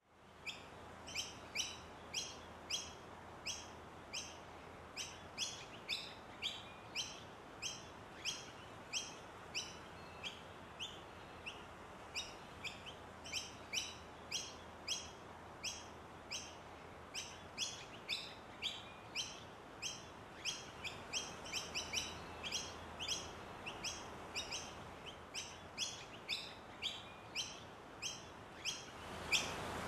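A bird chirping over and over, short high chirps about two a second, over a faint steady background hiss that grows louder near the end.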